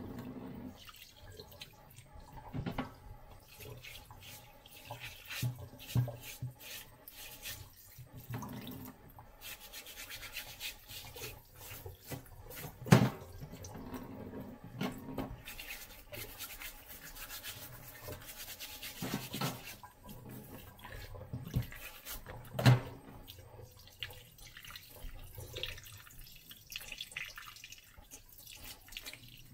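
Tap water running and splashing into a stainless steel sink while a whole sea bass is rubbed and rinsed by hand. Scattered knocks against the sink; the two loudest come about halfway through and again later.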